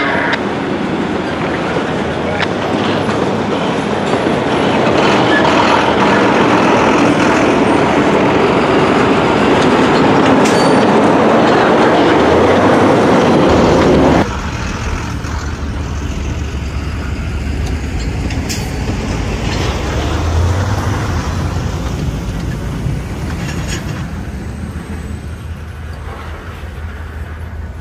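Freight train rolling on the rails, with steady wheel-and-car noise that grows louder over the first few seconds. About halfway through it cuts off abruptly and gives way to a quieter, steady deep rumble that slowly fades.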